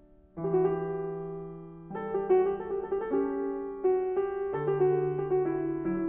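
Background piano music: slow chords struck and left to ring, a new chord coming every couple of seconds.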